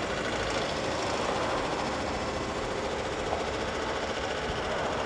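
Heavy machinery running steadily: a dense mechanical rumble with a fast rattle.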